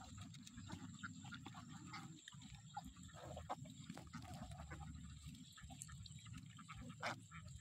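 A large flock of domestic ducks calling, faint: a dense, continuous low chatter with many short quacks scattered through it, and one louder sharp sound near the end.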